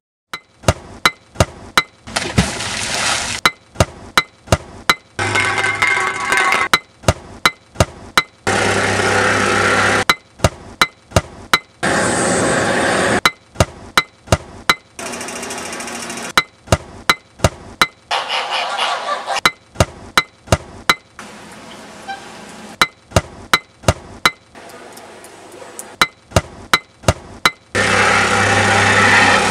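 A rhythmic montage of construction and street-work sounds: sharp tool strikes, like a pick hitting ground and paving, repeat in a regular beat. Between them come stretches of steady machine noise, such as a plate compactor's engine running.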